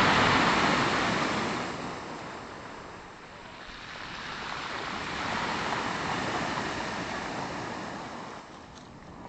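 Black Sea surf: a wave breaking and washing up the shore at the start, fading away, then a second wave swelling and receding about five to eight seconds in.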